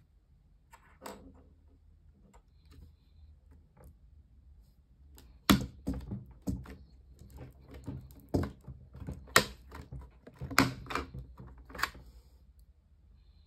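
Plastic clicks and snaps from the top battery cover of a Logitech MK470 slim wireless keyboard being pried off. A faint click comes about a second in. From about the middle there is a run of sharp clicks lasting several seconds, and the first one is the loudest.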